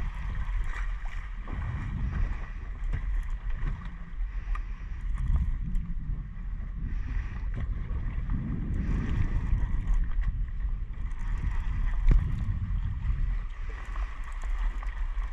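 Wind buffeting the microphone and sea water slapping against the hull of a small boat drifting on the open sea, a continuous low rumble.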